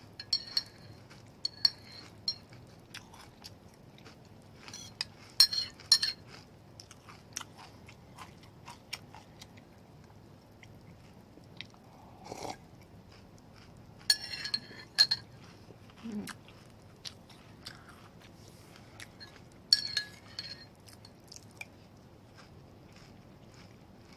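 Close-up crunchy chewing of Cocoa Pops cereal in milk, with a spoon clinking against the dish in a few short clusters.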